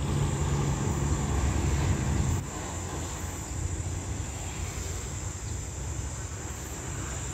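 A steady low engine drone for about the first two and a half seconds, then it drops away, leaving a steady outdoor hiss.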